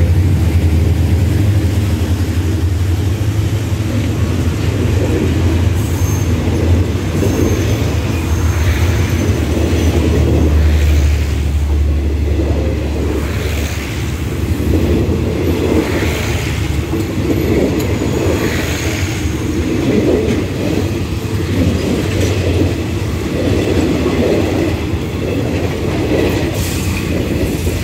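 Diesel express passenger train passing at close range. A deep rumble is heaviest for about the first eleven seconds, while the locomotive goes by. The coaches then roll past with a clack of wheels over the rail joints every two seconds or so.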